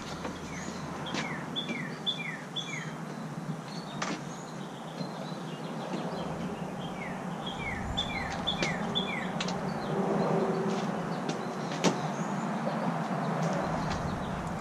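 A songbird chirping in repeated runs of three or four short falling notes, over scattered knocks and rattles of parts as a new A/C condenser is worked into a car's front end.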